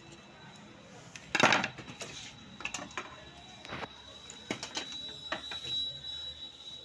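Clicks and clattering knocks of small hard parts being handled, with one louder scraping knock about a second and a half in, then a run of scattered sharp clicks.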